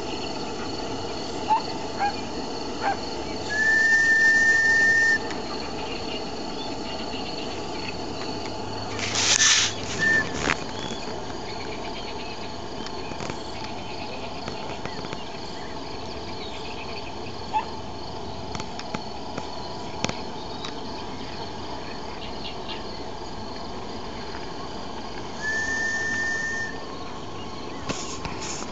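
Steam whistle of an RC model Western river steamboat blowing one steady high note for about a second and a half, twice, some twenty seconds apart. Between the two blasts, at about nine seconds, comes a short burst of hiss with a brief toot. Insects chirp steadily in the background.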